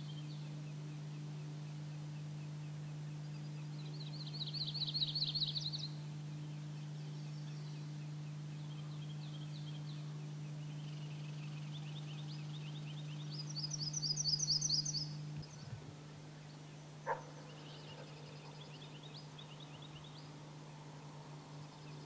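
Songbirds singing rapid, high trills, loudest about four seconds in and again about fourteen seconds in, with fainter trills between. A steady low hum runs underneath and stops about two-thirds of the way through, and a single sharp click comes soon after.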